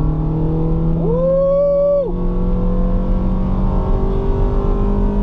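Honda CR-V 2.0-litre four-cylinder under full-throttle acceleration, heard from inside the cabin with a short ram intake fitted. The engine note and induction noise climb slowly and steadily in pitch. A short held high note, separate from the engine, sounds between about one and two seconds in.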